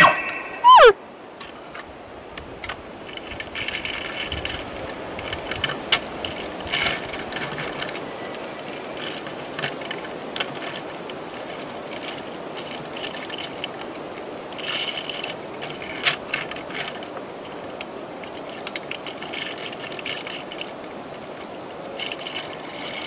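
A bull elk's bugle ending in a steep falling glide in the first second, followed by a long stretch of low background hiss with scattered faint clicks and ticks.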